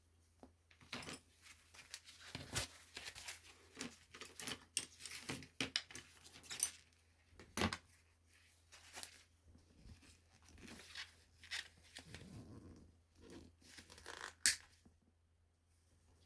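Irregular handling noise: quick rustling and scraping strokes with scattered clicks, the sharpest click near the end, over a faint steady hum.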